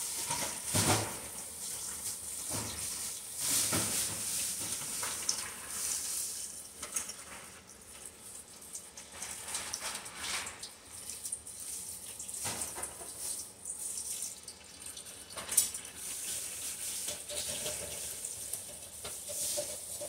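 Kitchen tap running into a sink, with occasional knocks and clatter of dishes being handled.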